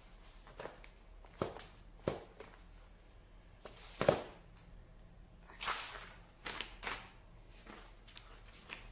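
Scattered knocks and clicks from handling the plastic and metal parts of an AB Tomic ab exercise machine, the sharpest about four seconds in, with a brief rustle of paper later on.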